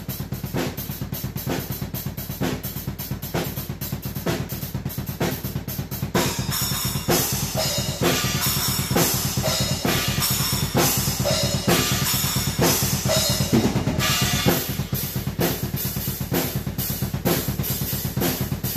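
Acoustic drum kit played fast and busy: rapid, steady bass drum strokes under snare hits and cymbals. From about six seconds in to about fourteen, the cymbals ring more heavily.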